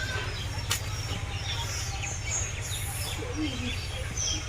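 Small birds chirping: many short, high, downward-sliding chirps scattered through, over a steady low rumble, with one sharp click less than a second in.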